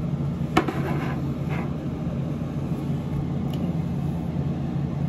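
Steady low hum of a running ceiling fan, with a single sharp click about half a second in.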